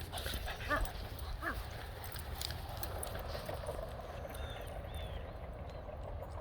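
A dog gives two faint short barks about a second in, then only a steady low outdoor hush with a few faint high chirps near the end.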